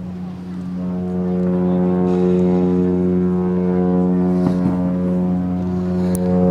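MSC Virtuosa cruise ship's horn sounding one long, deep, steady blast that grows fuller about a second in.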